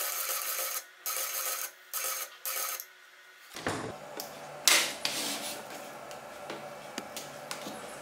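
A NEMA 17 stepper motor turning the wrapping machine's tape ring runs with a steady whine, stopping and starting several times over the first three and a half seconds. After it stops, a single sharp snip comes about halfway through as the tape is cut with scissors. Light handling clicks and rustles follow.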